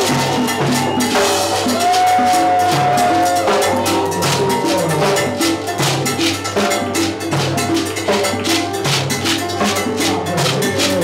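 Live salsa music with a cowbell beating a steady pattern over drums, and a long held note about a second in.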